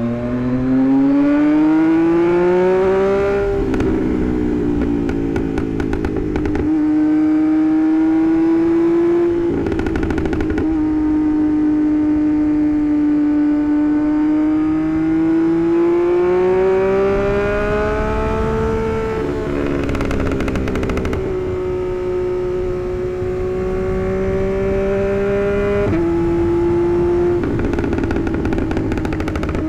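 Tuned Yamaha MT-09's three-cylinder engine being ridden along. The engine note climbs steadily at first, then drops and picks up again several times as the throttle is eased and reapplied through gear changes. A few short rough, crackly patches come where the pitch falls.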